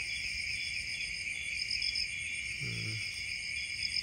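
Night insect chorus: several high, steady trills at different pitches layered together, one of them swelling and fading every couple of seconds. A brief low human voice sounds about three seconds in.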